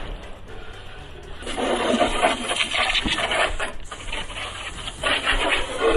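Garden hose spray nozzle spraying water onto an electric jetboard, a hissing spatter that grows louder about a second and a half in, rinsing sand and salt water off the board.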